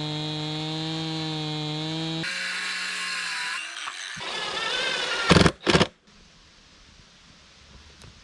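Chainsaw running steadily at full throttle as it rips a log in a chainsaw mill, cut off suddenly after about two seconds. A cordless circular saw then whines up and cuts through a board, with two short loud bursts, before the sound drops to faint outdoor ambience.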